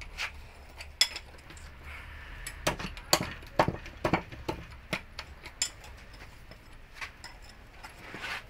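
A hammer and hand tools tapping and clinking on the steel parts of a light truck's differential carrier: irregular sharp metallic taps, the quickest run of them from about two and a half to five seconds in.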